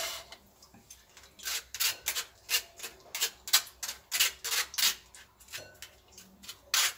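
Steel spoon scraping and pressing soaked tamarind pulp against a stainless steel mesh strainer: a quick run of short, rasping strokes, several a second, starting about a second and a half in, as the tamarind water is worked through the mesh.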